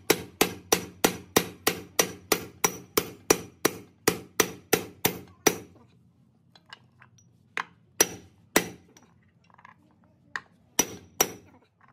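Metal hammer blows on a steel drift seating a gear in a Doosan DX140W hydraulic pump's gear housing. The blows come rapid and even, about three a second, for about five seconds, then stop, and two pairs of single blows follow.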